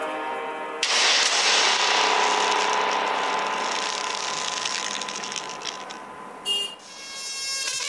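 An edited sound effect: a sudden noisy, rattling hit about a second in that fades over about five seconds, a brief high ping, then music with a steady pitch comes back in near the end.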